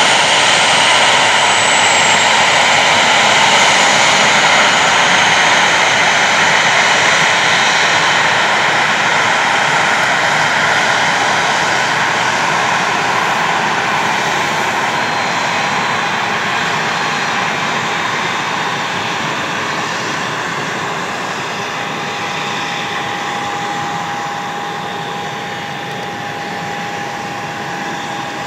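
Boeing 737-800 airliner's jet engines running loud: a continuous roar with steady high whining tones, slowly fading over the stretch.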